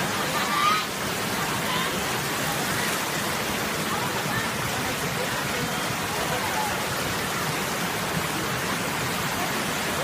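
Steady rushing hiss of water, with faint distant voices now and then and a short voice just under a second in.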